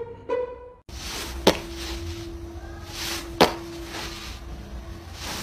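Two sharp smacks about two seconds apart over a steady low hum.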